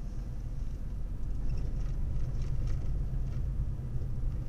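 Car driving on a paved road, heard from inside the cabin: a steady low rumble of engine and tyre noise that grows slightly louder about a second in.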